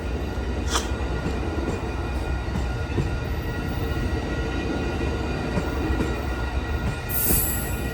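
Amtrak Coast Starlight passenger train rolling past, a steady rumble of wheels on rail with scattered sharp clicks. A brief high-pitched hiss comes about a second in and again near the end.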